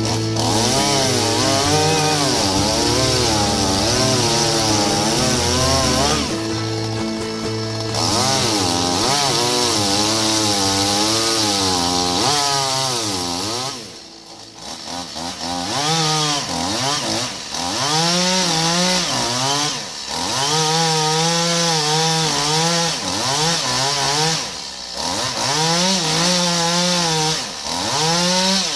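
Oleo-Mac chainsaw cutting through a pine trunk in repeated bursts, revving up, holding steady under load, then dropping back as the throttle eases. There are brief lulls, the longest about halfway through.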